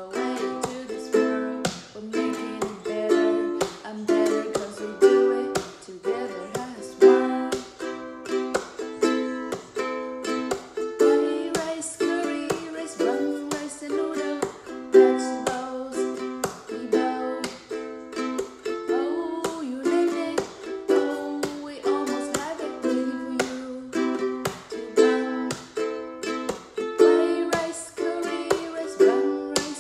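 Ukulele strummed in a steady rhythm of chords, with a woman singing along.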